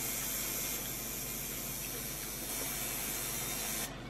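A steady hiss of noise, like rushing water or spray, that cuts off suddenly near the end.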